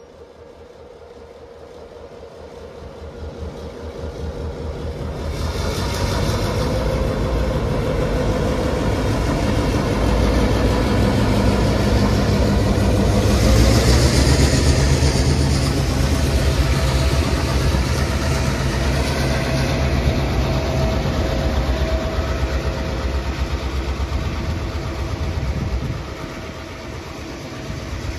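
Heritage diesel locomotives pulling a train away, led by 42105's two-stroke V16 EMD engine. The engine sound builds over the first several seconds as the locomotives power up and pass close by with a heavy, steady rumble, then drops suddenly near the end as the train moves off.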